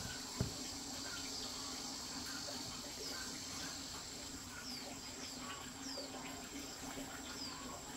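Steady high-pitched insect chorus, with short falling chirps scattered through it and one sharp knock about half a second in.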